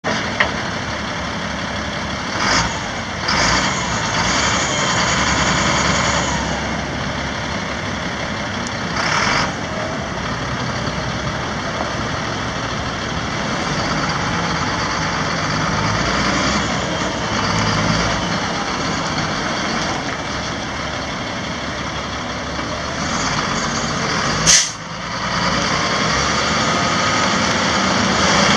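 2001 Sterling LT7500 dump truck's Caterpillar 3126 inline-six turbo diesel running steadily, with several short hisses of air from its air system, the loudest and sharpest near the end.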